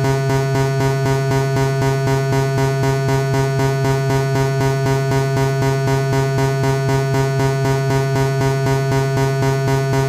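Synthesized imitation of an MRI scanner's gradient-coil sequence: a strong, low, buzzy tone pulsed in a rapid, even rhythm that holds unchanged.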